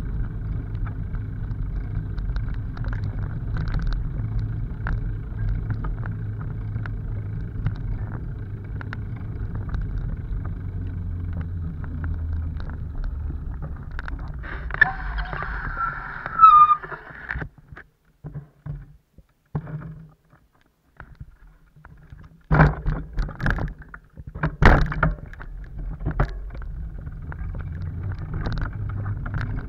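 Bicycle riding on a dirt forest path: a steady low rumble of tyres, frame rattle and wind on the microphone. About halfway through there is a brief squeal and the rumble stops for several seconds. A few loud knocks and rattles follow as the bike is handled past a fallen tree trunk, then the riding rumble resumes.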